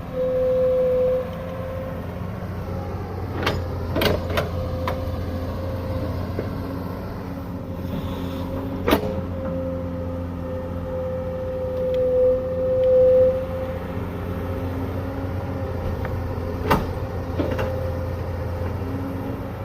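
Hydraulic excavator running: a steady diesel engine hum with a hydraulic whine that swells about two-thirds of the way through, broken by several sharp metallic knocks, a quick cluster early and single ones later.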